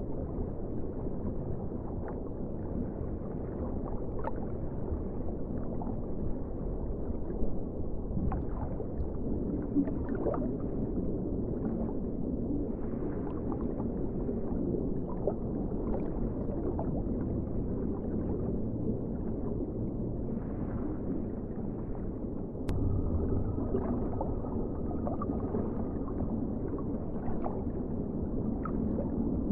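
Underwater ocean ambience: a steady, low, muffled rumble with scattered gurgles and small clicks. Near the end there is a sharp click, and the low rumble becomes louder.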